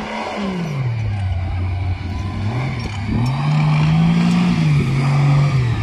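Engine of a tube-frame off-road buggy revving as it crawls over a dirt mound: the pitch drops about half a second in, runs low for a couple of seconds, then climbs again about three seconds in and runs louder, easing down in steps near the end.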